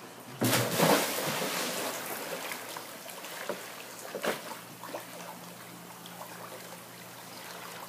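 A person plunging into a swimming pool: one loud splash about half a second in, then the smaller splashes of swimming strokes through the water. A low steady hum runs underneath.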